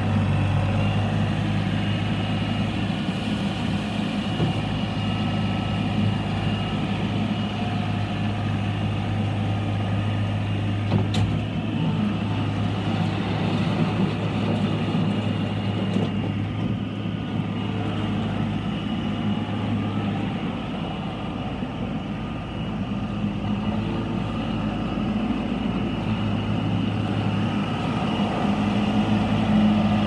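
New Holland LS180 skid steer's diesel engine running steadily under work, with a single sharp knock about eleven seconds in. The engine eases off for a few seconds past the middle and picks up again near the end.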